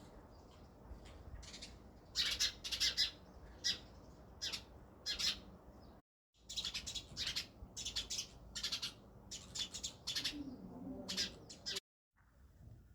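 House sparrows chirping: short, sharp chirps coming in quick clusters, the sound cutting out abruptly for a moment twice.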